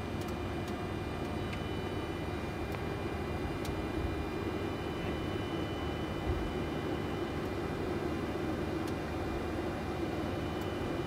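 Steady flight-deck noise of a Boeing 747-400 taxiing: a low engine-and-airflow rush with faint steady high whine tones, and a few light ticks.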